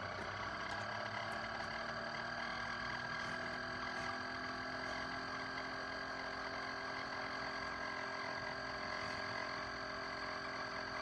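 Chefman single-serve coffee maker running with a steady, incredibly loud multi-tone hum and whine: the weird noise the machine makes while brewing, which its owner can't explain.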